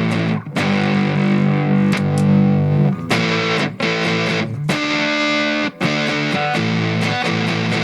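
Electric guitar played through a fuzz pedal, with heavily distorted sustained notes and chords in short phrases broken by quick stops.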